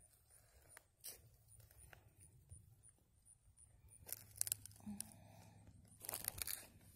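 Faint rustling and crunching of dry forest-floor litter (leaves, needles, twigs), in a few short crackly bursts: one about a second in, then around four and six seconds in.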